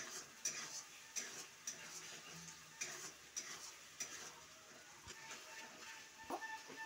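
A spatula stirring and scraping a masala paste frying in oil in a metal frying pan, with a faint sizzle. The scrapes come about twice a second and thin out near the end. The spice paste is being fried until it turns red.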